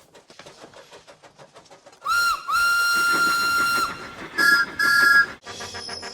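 Steam locomotive sound effect: quiet, rapid, even chuffing, then the steam whistle blows a short toot and a long held note. Two short toots on two notes follow, and music comes in near the end.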